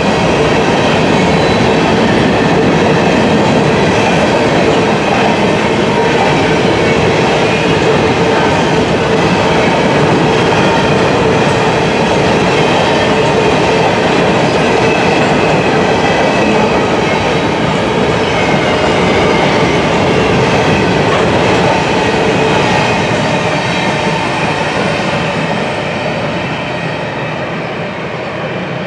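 Covered hopper cars of a freight train rolling past on the rails: a steady loud rumble and clatter of wheels on track, with a thin steady ringing tone over it. It fades over the last several seconds as the end of the train pulls away.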